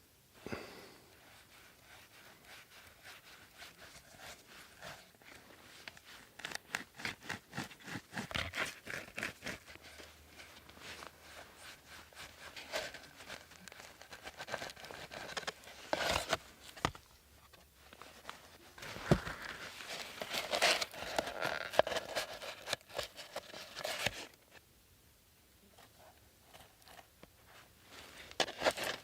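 Dry dogbane stalks being cracked and their fibres torn and stripped by hand, a rapid crackling and tearing that comes in bursts, louder around the middle and latter part.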